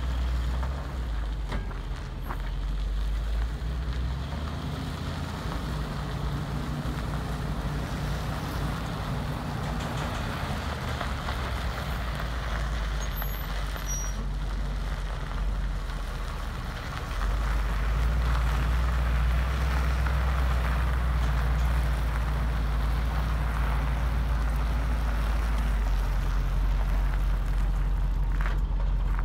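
1988 Chevy C70 service truck's engine running as the truck moves slowly across gravel, a steady low hum that grows louder about halfway through as the truck comes up close and stays running.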